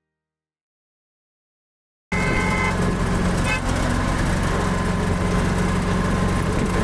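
About two seconds of silence, then the steady engine hum and road noise of a vehicle driving through city traffic, with a short horn toot right as the sound comes in.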